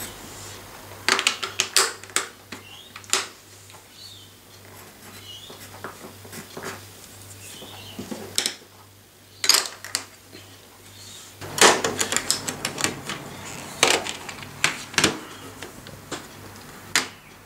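Small plastic tiles and a plastic Mini LÜK case clicking and clattering as they are handled on a wooden table. The clicks come in a quick cluster about a second in and again in a longer run from about eleven to fifteen seconds in, as the case is snapped shut and turned over.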